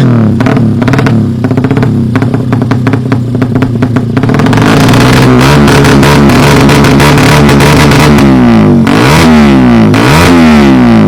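150cc engine being revved after a tune-up. It drops to an uneven, choppy idle for a few seconds, climbs and holds at higher revs, then is blipped sharply down and up a couple of times near the end.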